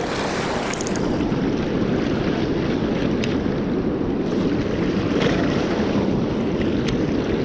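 Swollen, high river current rushing steadily, with wind buffeting the microphone and a few faint clicks.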